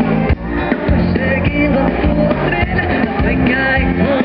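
Live band music played loud through a stage sound system and recorded from out in the audience: drums, guitar and other instruments, with a wavering melody line on top.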